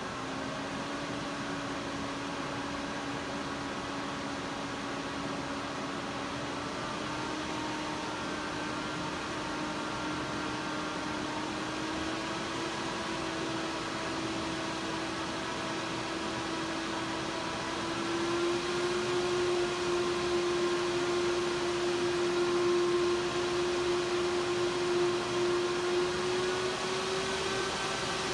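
Bitmain Antminer D3 X11 ASIC miner's cooling fans running under full mining load: a steady whirr with a fan tone that rises slowly in pitch as the fans speed up, growing louder about 18 seconds in.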